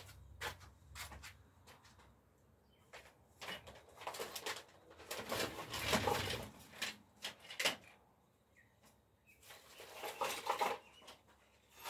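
Intermittent rustling and scraping with scattered sharp knocks and clatters, as objects or dry material are handled. It is loudest about five to seven seconds in and again around ten seconds in.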